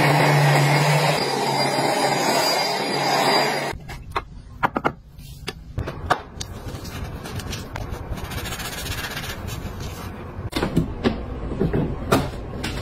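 Handheld bed vacuum (mite cleaner) running with a steady motor hum and rush of air, cutting off abruptly about three and a half seconds in. Then scattered sharp clicks and knocks of things being handled, with a burst of clicks near the end as clear plastic shoe-box doors are snapped open.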